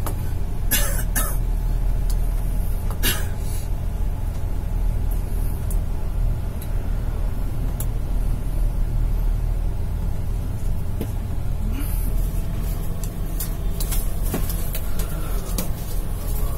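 Steady low rumble of a moving bus, its engine and tyres heard from inside the cabin. A few short rushing noises come about a second in, about three seconds in, and again about twelve seconds in.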